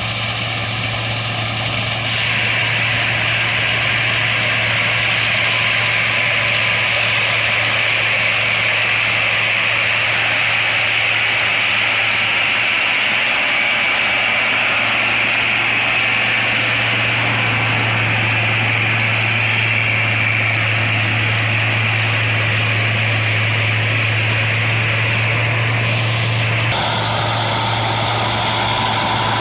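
Rice combine harvester running steadily: a constant low engine hum under a loud, even machinery hiss. The sound gets louder about two seconds in, and the higher hiss drops away near the end.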